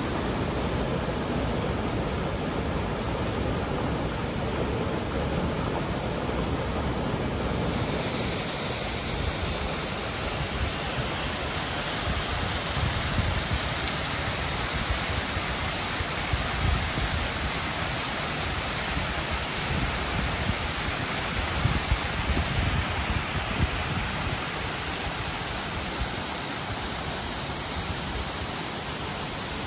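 A mountain river running over rocks and small falls into clear pools, a steady rush of water. Its tone changes once, about seven seconds in, turning brighter and hissier.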